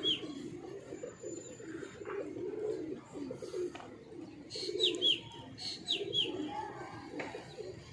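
Pigeons cooing steadily, with a small bird's sharp falling chirps coming in pairs at the start and twice around five to six seconds in.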